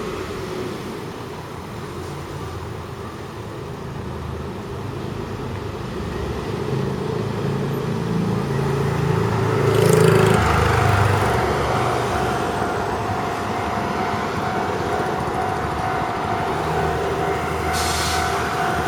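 Road traffic passing over a level crossing, loudest about halfway through as a vehicle goes by. Just after, the Japanese railway crossing's electronic warning bell starts ringing steadily and keeps on, signalling that a train is approaching and the crossing is closing. A short hiss comes near the end.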